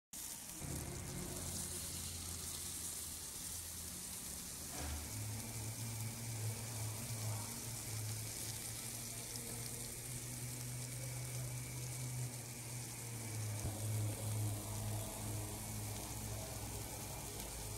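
Fish frying in oil on a flat tawa griddle: a steady sizzle, with a low steady hum underneath.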